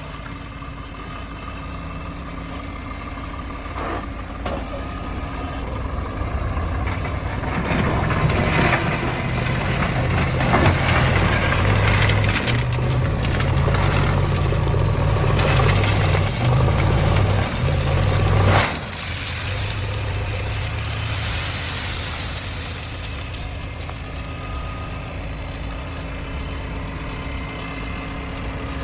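Heavy diesel engine running steadily, then rising and working harder with its pitch stepping up and down for about ten seconds before it drops back suddenly to a lower, even run. A few knocks are heard along the way.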